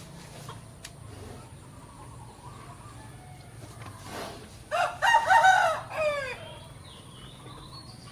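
A rooster crows once, about five seconds in: a call of about two seconds that ends on falling notes. A faint steady low hum runs underneath.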